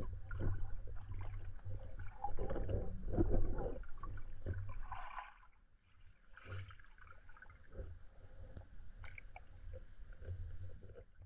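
Muffled underwater sound of a river heard through a submerged camera: a steady low rumble of moving water with irregular gurgles and small knocks. There is a brief louder rush about five seconds in, and the rest is quieter.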